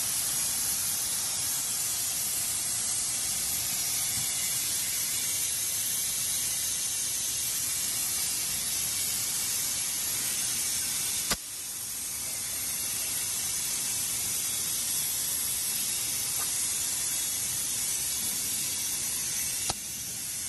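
Gas hissing steadily through filling heads into composite gas cylinders as they are filled. Two sharp clicks from the filling heads being worked, one about eleven seconds in and one near the end, each followed by a short dip in the hiss.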